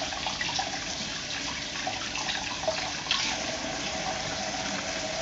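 Tap water running steadily into a washbasin, with a faint click about three seconds in.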